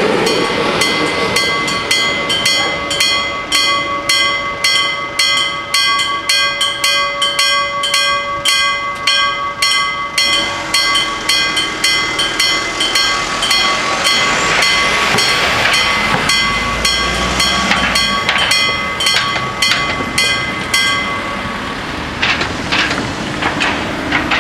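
The two electric bells of a level crossing ring in a fast, even clanging, about two to three strikes a second, while the barrier arms lift to reopen the road. At the very start the passing diesel railcar's running noise trails off. The bells stop a few seconds before the end, when cars drive over the crossing.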